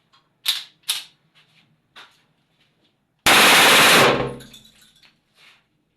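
Two sharp clicks and a few lighter ticks, then about three seconds in a very loud burst of gunfire lasting under a second that clips the recording and fades out after.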